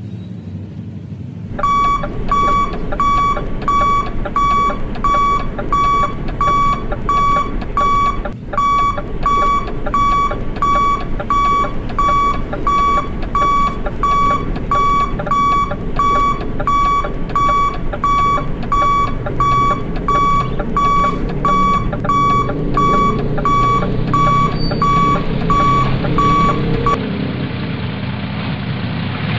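Toy RC dump truck's electronic reversing beeper, an even high beep repeating about three times every two seconds. It starts shortly after the beginning and stops near the end.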